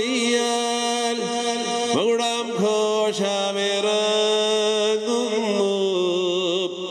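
A man chanting a liturgical prayer over a church microphone, in long held notes with a wavering pitch, above a steady low drone.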